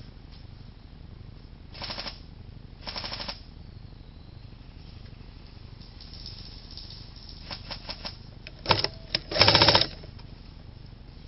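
Airsoft electric guns firing short full-auto bursts, a rapid rattle of shots: two bursts about two and three seconds in, scattered shots later on, and the loudest burst near the end.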